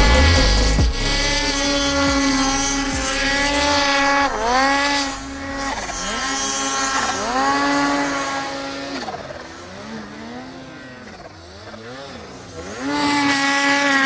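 Two-stroke mountain snowmobile engine held at high revs in deep powder. The revs dip and climb back several times with the throttle, drop lower and waver for a few seconds, then return to a steady high pitch near the end.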